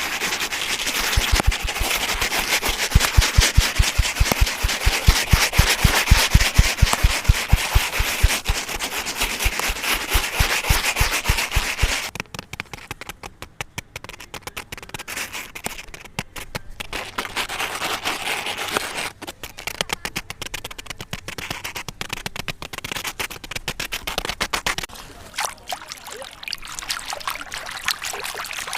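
Rapid, even knocking at about four to five knocks a second, each with a dull thump. About twelve seconds in it gives way to sparser, lighter taps and rubbing crackles.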